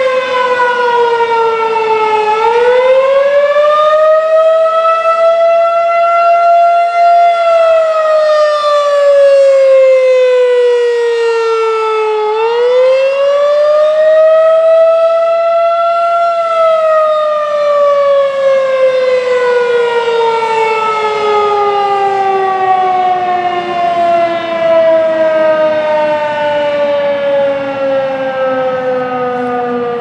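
Federal Signal 2001-SRN electronic outdoor warning siren sounding its Attack signal: a loud wavering tone that falls, rises, falls and rises again in slow cycles, then sinks in one long slow fall in pitch through the second half. Its rotating speaker head turns as it sounds.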